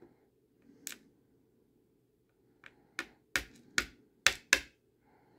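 Small brass lock pins clicking out of a padlock's plug onto a plastic pin tray. There is one click about a second in, then a quick run of about six sharp clicks in the second half.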